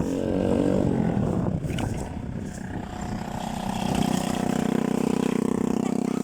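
A motor vehicle's engine running close by, its pitch rising briefly about the start and then holding steady and a little louder in the second half.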